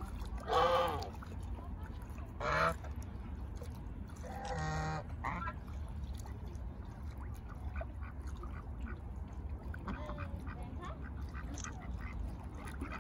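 Domestic geese honking, two loud calls in the first three seconds, followed by a shorter call around the middle and fainter short calls from mallards among them.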